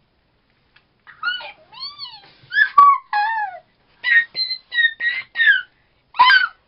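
A girl imitating a cat: a string of about ten short, high-pitched meows, each rising and falling in pitch, starting about a second in.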